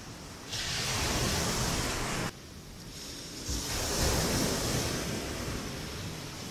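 Ocean surf washing onto a sandy beach, with wind gusting over the microphone. The rush drops away suddenly a little over two seconds in and builds back up about a second later.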